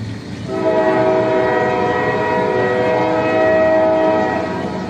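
Train sound effect: a long horn blast of several notes sounding together over the steady rumble of a moving train. The horn comes in about half a second in and fades out near the end while the rumble carries on.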